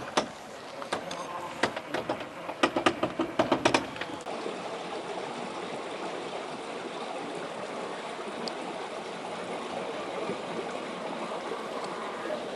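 A series of sharp clacks and knocks, bunched in the first four seconds, likely the 1/10 scale Traxxas TRX-4 crawler's hard parts striking rock. After that, a steady rushing noise like running water.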